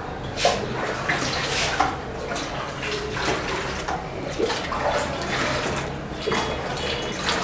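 Water splashing and sloshing in a plastic basin as food is washed by hand, with irregular small splashes.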